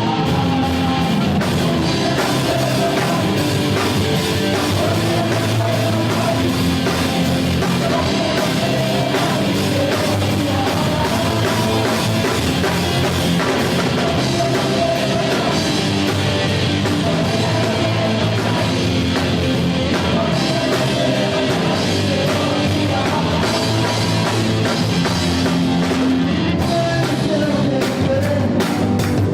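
Live gospel rock band playing with drum kit, guitars and singing.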